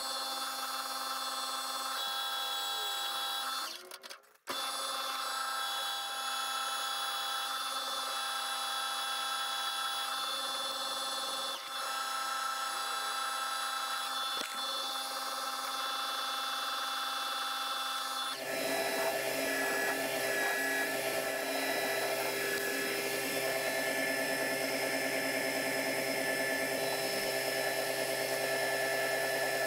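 Metal lathe running steadily with its chuck spinning, a constant whine of several tones from its gearing. The sound breaks off briefly about four seconds in, and its tone shifts to a lower, fuller pattern at about eighteen seconds.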